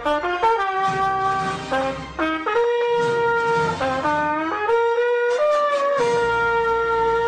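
Music: a horn-like melody of long held notes that slide from one pitch to the next, over a low bass.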